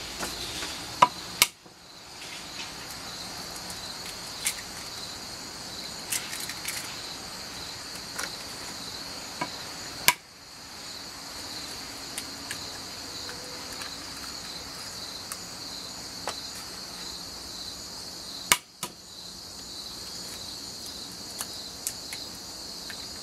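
Eggs being cracked against a wooden cutting board: three sharp knocks several seconds apart, with small clicks of shell and silicone cups being handled between them. A steady high chirring of insects runs underneath.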